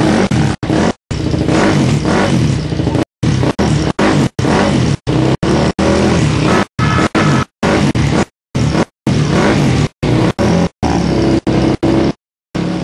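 The 426cc single-cylinder race engine of a Minimono racing motorcycle running while it is warmed up from cold. The recording keeps cutting out in brief gaps.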